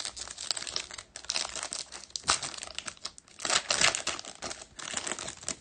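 A foil trading-card pack wrapper being torn open by hand, crinkling and crackling, with louder bursts a little past two seconds and again around three and a half to four seconds in.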